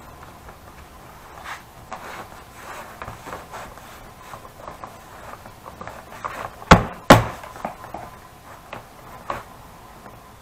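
Stiff leather saddle pieces shifted, rustling and sliding on a wooden workbench, with two sharp slaps close together about two-thirds of the way through.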